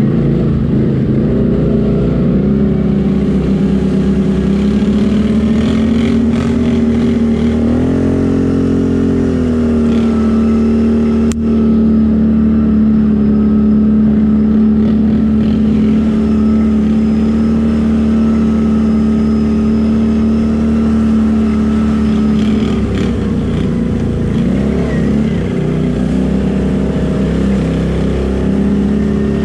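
Can-Am Renegade 800's V-twin engine running at steady revs while riding. The pitch rises briefly about eight seconds in and wavers again about three quarters of the way through.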